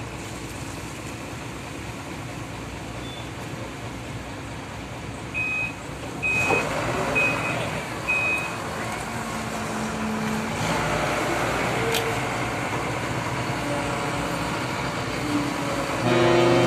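Steady background noise of harbour traffic and engines. Four short, high beeps like a reversing alarm sound about five to eight seconds in. Near the end a loud, low, steady tone with several pitches starts up.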